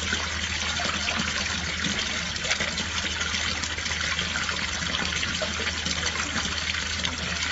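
Water running steadily, with a low hum underneath.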